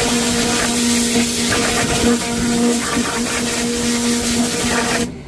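Pressure washer running: a loud, steady spray hiss over a steady motor hum as the jet blasts grime off washing machine parts. The spray cuts off suddenly near the end.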